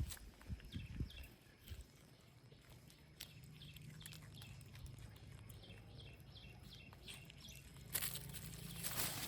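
Faint outdoor ambience: small birds chirping again and again over a low steady hum, with a few light knocks in the first second or so and a brief rustle near the end.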